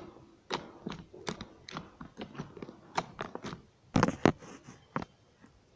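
White-glue slime being squeezed and worked by hand, giving irregular sticky clicks and pops, with a louder cluster of pops about four seconds in.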